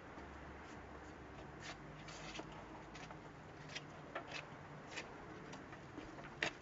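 Faint scattered clicks and light rubbing of parts and tools being handled, with a low hum in the first second or so.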